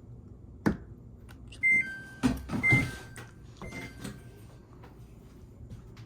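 Samsung FlexWash washing machine's control panel beeping as its buttons are pressed to set a cycle: three short electronic beeps about a second apart, with a sharp click just before and some knocking around the second and third beeps.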